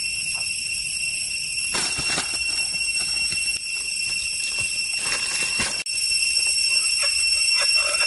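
Steady high-pitched drone of forest insects, holding several fixed pitches, with leaves rustling and irregular footsteps through undergrowth and leaf litter.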